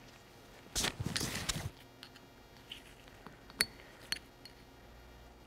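Small metal parts being handled: a scraping stretch about a second in, then a few light metallic clicks, one with a brief ring. This is a steel lock ring (circlip) being worked into a new piston's wrist-pin bore with a pick.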